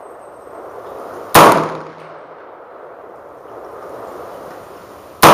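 Two rifle shots from an AR-15 chambered in .300 AAC Blackout, one about a second and a half in and another at the very end, each followed by a short echo.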